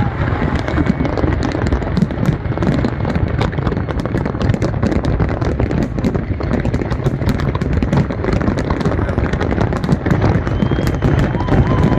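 Fireworks going off in a continuous run of sharp cracks and pops, many to the second, over a dense low rumble.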